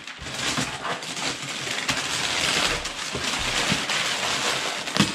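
Gift wrapping paper being torn and crumpled off a cardboard box: continuous rustling with many small rips. A short sharp knock near the end.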